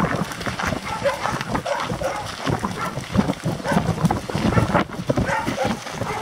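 Dog barking in short, repeated barks, over the footsteps of people and dogs walking on a dirt track.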